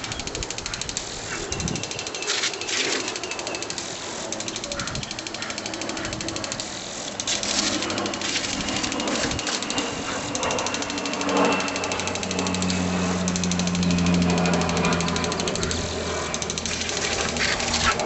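Impact lawn sprinkler ticking rapidly and steadily as it sprays, its jet chattering. A low hum joins in about two-thirds of the way through.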